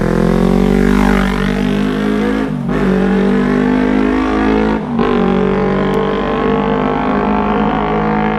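Kawasaki Ninja 300 parallel-twin engine running through an MGP Growler aftermarket exhaust, holding a steady pitch, with two brief drops in sound, about a third and just over halfway through.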